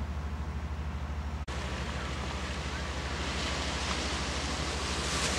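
Steady rushing outdoor noise over a constant low hum, with a brief dropout about a second and a half in, after which the hiss is brighter and slightly louder.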